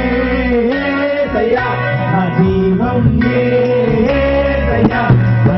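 Amplified worship song: a voice singing a melody with held, gliding notes over instrumental accompaniment, played loud through a sound system.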